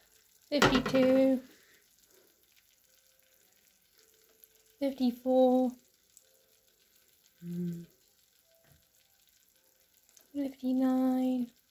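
Faint sizzling of food cooking, broken four times by short, drawn-out bursts of a person's voice.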